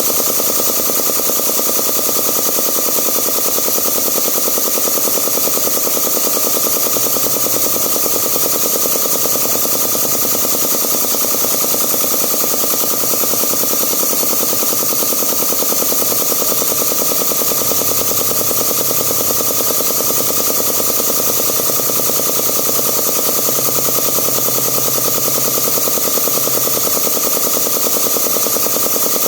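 Zacchi piston air compressor running steadily, its pump making a rapid, even rattle of repeated strokes.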